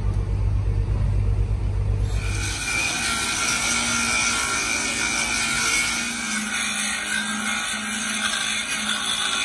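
Angle grinder grinding a weld bead flush on an excavator boom's steel plate: a loud, steady grinding hiss with a held whine. For about the first two seconds a low steady hum is heard before the grinding starts.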